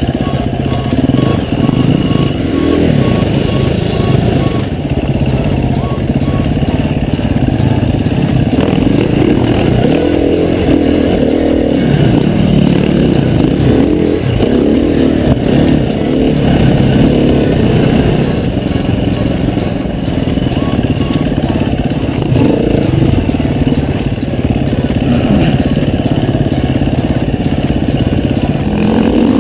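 Enduro dirt bike engine running under load on a trail ride, its revs rising and falling continually.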